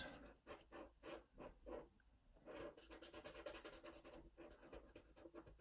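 Faint scratching of a Posca paint marker's tip on paper in rapid short back-and-forth strokes, colouring a small area in black.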